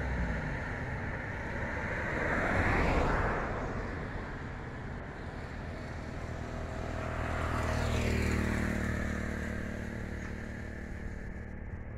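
Road vehicles passing by: the traffic noise swells and fades twice, once about three seconds in and again around eight seconds, with a low engine hum under the second pass.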